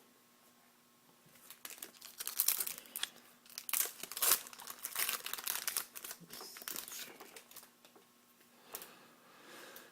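Foil wrapper of an SP Authentic hockey card pack being torn open and crinkled, a dense run of crackling starting about a second and a half in and dying down near the end.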